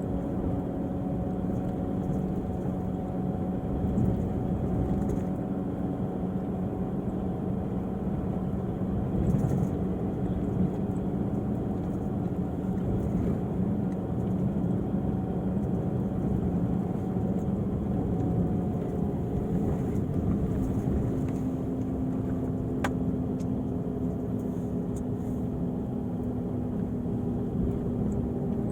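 Volvo diesel engine of an Irizar i6s coach running steadily, its pitch stepping up a little about two-thirds of the way through.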